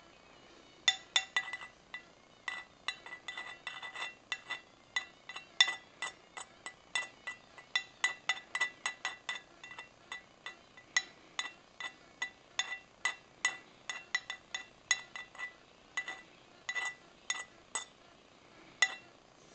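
Thin metal rod tapping on the bottom of a glazed ceramic bowl where it prods a bead of liquid metal: a long string of irregular, sharp clinks, a few a second, each with a short ringing tone, starting about a second in.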